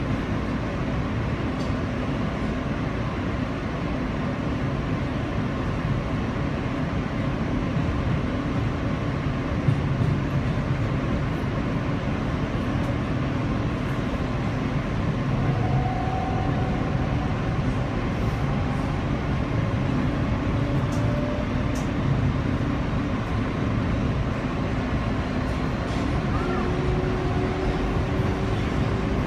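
R160B subway car heard from inside while the train runs between stations: steady rumble of steel wheels on the rails, with a faint tone that rises slightly near the end and a single knock about ten seconds in.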